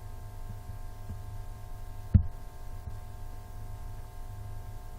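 Steady low electrical hum with a few faint steady tones above it, and a single sharp click about two seconds in.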